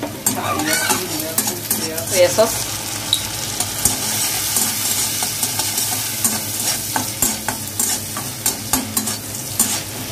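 Chopped onion frying in butter in a steel kadai, sizzling steadily, while a slotted steel spatula stirs it with repeated short scrapes against the pan.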